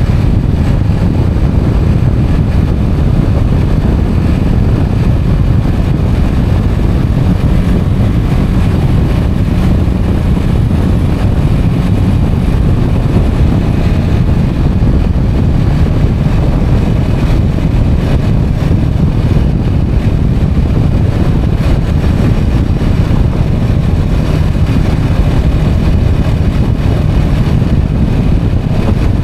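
Motorcycle riding at steady road speed, heard as a loud, even low rumble of wind buffeting the microphone mixed with engine and tyre noise, with no distinct engine note or shifts standing out.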